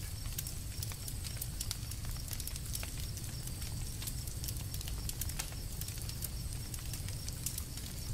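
Campfire crackling: irregular sharp pops, several a second, over a steady low rumble of the flames.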